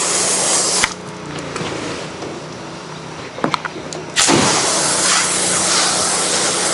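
Gas pressure washer spraying water through its low-pressure black tip onto a wood deck, a steady hiss over the engine's hum. Just under a second in the spray cuts off suddenly and only the engine is heard running; the spray starts again suddenly about four seconds in.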